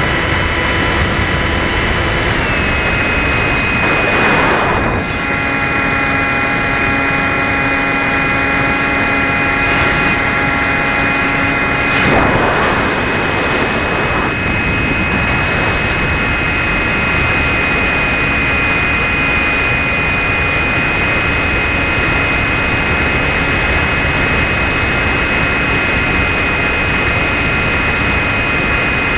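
Electric brushless motor (Propdrive 2836, 2200 kv) and propeller of a Bixler foam plane in cruise, heard from an onboard camera: a steady high whine over rushing air noise. The whine drops slightly in pitch about two seconds in, and the rushing noise swells briefly twice, around four and twelve seconds in.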